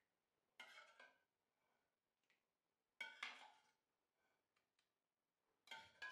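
Faint clinks and scrapes of a steel serving spoon against a steel pan and a serving bowl as thick palak paneer gravy is ladled out, three short bursts with a brief ring after each, otherwise near silence.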